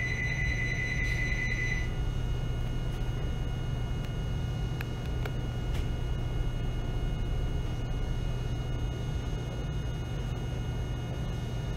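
A steady high electronic tone that cuts off about two seconds in, then the steady low hum of a stopped 207 series electric train.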